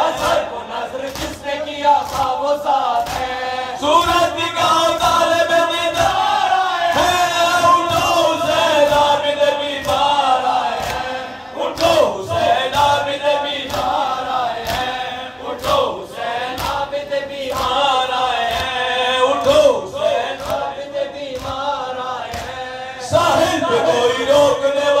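A noha chanted by a group of men, a lead voice over a microphone with the others joining in, kept in time by matam: a steady beat of open-hand slaps on chests, about one to two a second.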